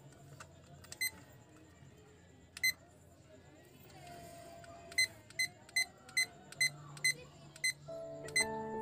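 Digital timer's button beeps as it is being set: two single short beeps a second and a half apart, then a quick even run of beeps, about two or three a second. Background music comes in near the end.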